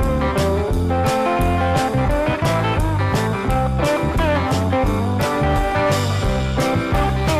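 Instrumental background music: guitar over a steady beat and bass.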